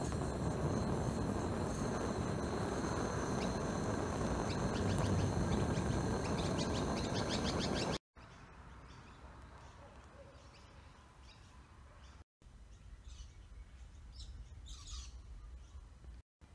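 Steady rushing of a gas torch flame playing over a pine board to char it, with birds chirping. About eight seconds in the torch sound cuts off abruptly, leaving quiet outdoor background with a few more bird chirps.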